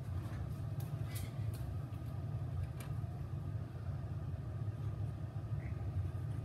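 Steady low rumble of background noise, with a few faint light ticks of a marker working on paper.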